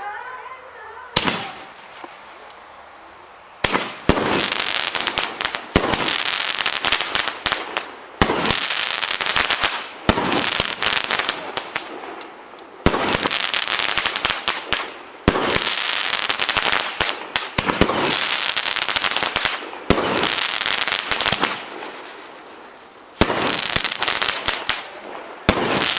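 Oriental Fireworks 'Dark Thunder' 16-shot barrage cake firing. After a first report about a second in, the shots come about every two seconds from around four seconds, each breaking into a burst of dense crackling that lasts a second or two, with a short pause near the end.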